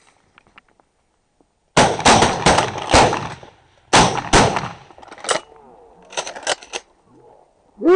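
Several shotguns firing at incoming waterfowl: a rapid volley of many overlapping blasts starting about two seconds in, a few more single shots, then a quicker run of quieter shots near the end.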